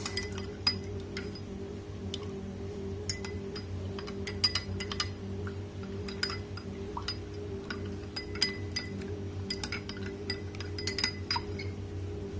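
A metal spoon or utensil clinking against a cooking vessel: irregular light taps, each with a short ringing tone, over a steady low hum.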